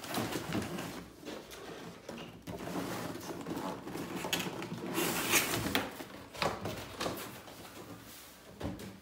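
Cardboard handling: an inner cardboard tray sliding out of a snug printed outer box, with scraping, rubbing and light knocks of cardboard, loudest about five seconds in.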